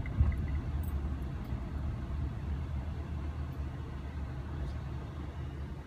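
Steady low rumble of a car heard from inside the cabin while it is stopped or barely moving at a stop sign, with a small click right at the start.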